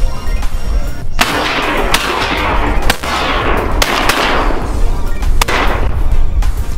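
A volley of about five shotgun shots from duck hunters firing at ducks overhead, each crack followed by a long fading echo, over background music.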